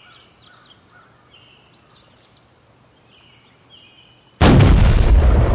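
Birds chirping faintly, then about four seconds in a sudden huge blast as a cartoon gold pistol is fired: an explosion-sized bang that carries on as loud continuous noise.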